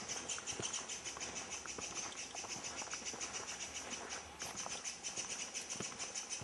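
Forest insects chirping in a rapid, even pulsing, high-pitched and steady, with a brief dip a little past the middle.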